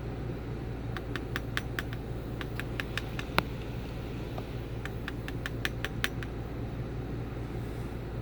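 Light clicks and taps of small tools and parts on a disassembled EVVA EPS lock cylinder as its springs are worked out. They come in three quick runs of ticks, with one sharper tap about three seconds in, over a steady low hum.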